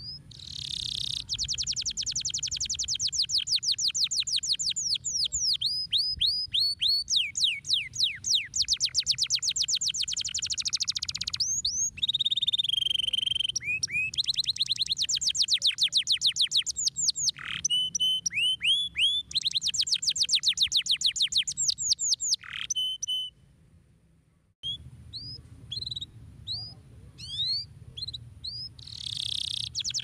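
Domestic canary singing: long rolls of rapid, evenly repeated high notes, broken by runs of sweeping glides, with a brief stop about three quarters of the way through before the rolls start again.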